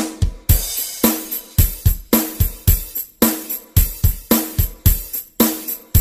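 Background music with a steady drum-kit beat, kick and snare hitting about twice a second.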